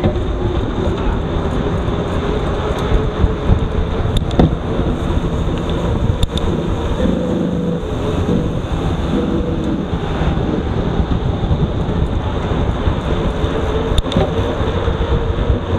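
Wind buffeting the microphone of a mountain bike tandem's mounted camera, over the steady rolling noise of the bike on pavement, with a few sharp clicks.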